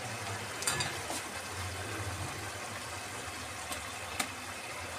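Tomato-onion gravy in oil sizzling and bubbling in a pan as strained eggplant pieces are added, with a few light clicks and knocks, the loudest near the start.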